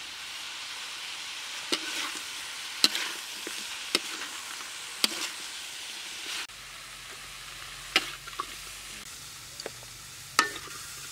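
Field-rat stir-fry sizzling in a hot wok as holy basil is stirred in, with sharp clinks of a metal spatula against the pan every second or so.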